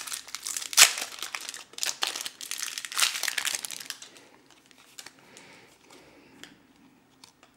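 A foil trading-card booster pack being torn open and crinkled, the loudest rip about a second in. Then quieter rustling as the cards are slid out and handled.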